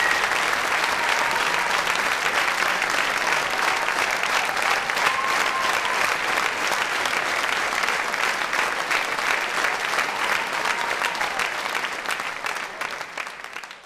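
A theatre audience applauding, dense and steady, fading away near the end.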